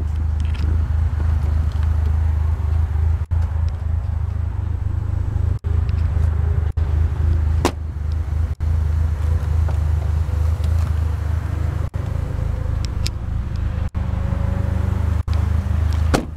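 Chrysler PT Cruiser GT's 2.4-litre turbocharged four-cylinder engine idling with a steady low hum. There is a sharp click near the end.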